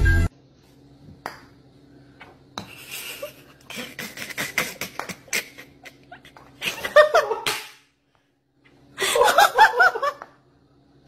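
A person laughing: quieter giggles and short clicks first, then two louder bursts of laughter in the second half.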